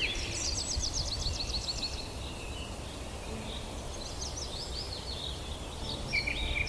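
Songbirds singing in rapid high trills and chirps, in two bouts, over a low steady rumbling noise.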